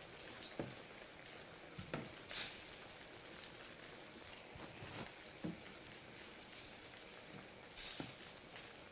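Creamy mushroom and dill sauce simmering in a stainless steel skillet with a faint, steady hiss. A wooden spoon stirring it gives several soft knocks against the pan.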